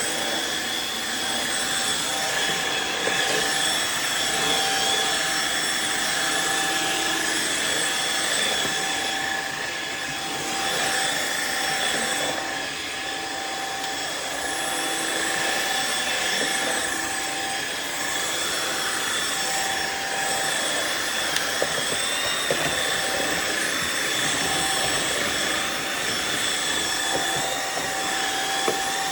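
Riccar R70 wet floor washer running steadily, its motor giving a constant high whine with a few faint ticks late on.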